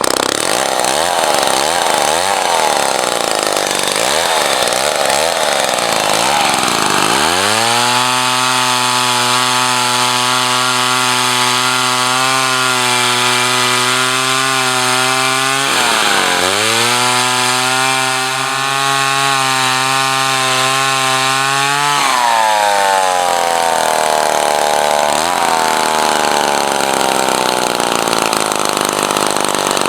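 Jobu Tiger 93 cc two-stroke chainsaw running: revved up and down for several seconds, then held at high revs steadily for about fifteen seconds with one brief dip, then dropping off about three-quarters of the way through. Its chain is poorly oiled, which the owner suspects is causing resistance in the chain.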